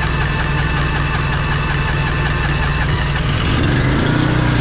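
Gasoline pony motor for the trailer's hydraulics running steadily, having just caught on starter fluid. Its note changes and gets slightly louder about three and a half seconds in.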